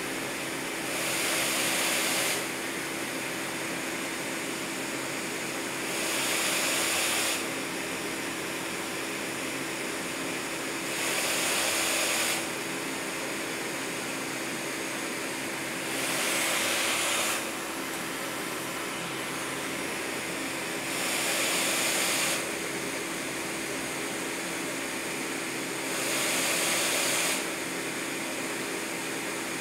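Quantum PSV 7700 ventilator's blower running with a steady hum, swelling into a louder rush of air for about a second and a half every five seconds as it delivers each breath, six times in all. Its outlet is partly taped over to stand in for a patient.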